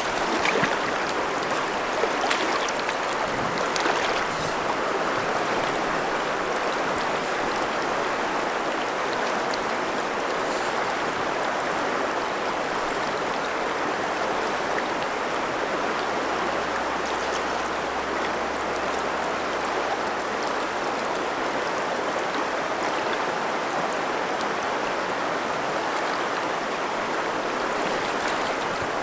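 River water flowing steadily past, an even rushing sound with no change in level.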